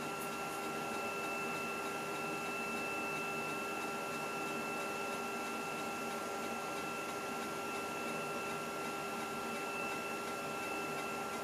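Macintosh SE's internal 800K floppy drive running steadily while formatting a GCR-encoded 800K disk, a constant mechanical whirr of the spinning disk and drive.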